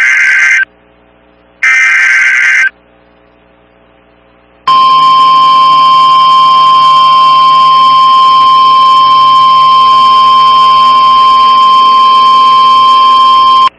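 NOAA Weather Radio EAS alert: the last two of the three raspy SAME digital header bursts, each about a second long and a second apart. About four and a half seconds in, the steady 1050 Hz warning alarm tone starts and holds for about nine seconds. Together they mark the start of a new warning broadcast, here a severe thunderstorm warning.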